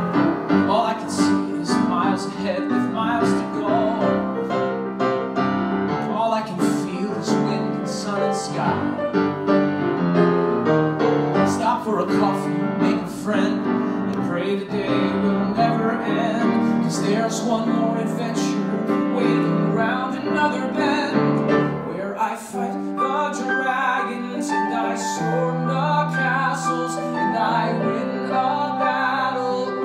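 Live piano accompaniment to a male singer performing a musical-theatre song, heard through an audience recording.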